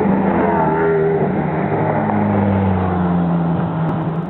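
Jaguar F-Type R's supercharged V8 engine running at fairly steady revs.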